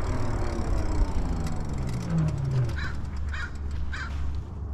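Electric bike motor whine falling steadily in pitch as the bike slows at a stop sign, over wind rumble on the microphone. About three seconds in, a crow caws three times.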